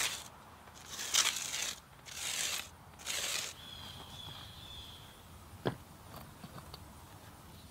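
Four scraping strokes of a broom sweeping grit across brick pavers, each about half a second long, followed a couple of seconds later by a single sharp knock of a brick being set down.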